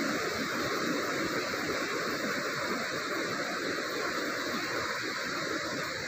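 Ocean surf: a steady, even rush of noise with no single wave crash standing out.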